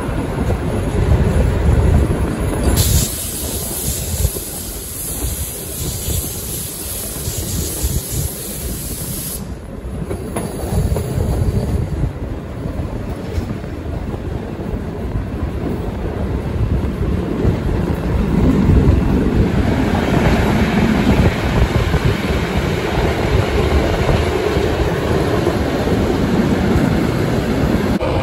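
Steam-hauled passenger train running, heard from an open carriage window: a steady rumble of the carriage wheels on the track with clacking over the rail joints. A high hiss or squeal joins for several seconds shortly after the start.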